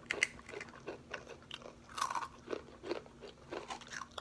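Close-up crunching and chewing of Takis rolled corn tortilla chips being bitten into, irregular crisp crunches several times a second.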